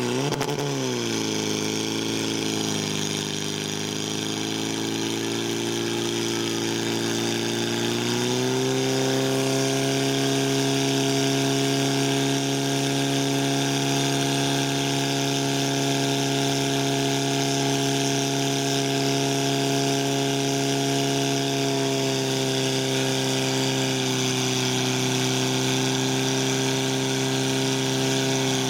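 Engine of a portable fire pump running hard while it pumps water through the attack hoses. Its pitch swings up and down in the first couple of seconds, then steadies, and about eight seconds in it steps up to a higher, steady pitch that it holds.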